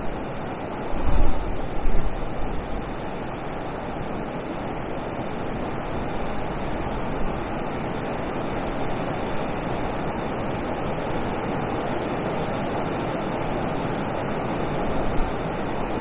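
Steady rush of water pouring over a weir, with wind buffeting the microphone in low gusts about one to two seconds in and again near the end.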